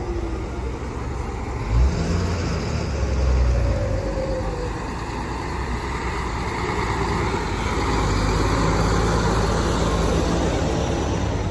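Diesel engines of fire-department trucks driving slowly past at close range, a crane truck among them, running steadily. A short thump about two seconds in.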